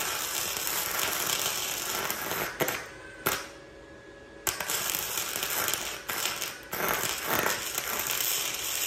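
Electric arc welding a bead: a steady crackling arc, broken by a pause of about a second and a half three seconds in and twice more briefly. The welder has been turned down to close a blown-through hole, and the bead is running slightly cold but still getting penetration.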